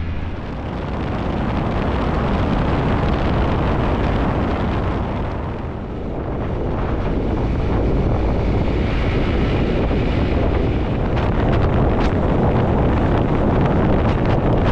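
Wind rushing and buffeting over the microphone of a moving motorcycle at road speed. It is a steady, heavy roar that eases slightly partway through and then builds again.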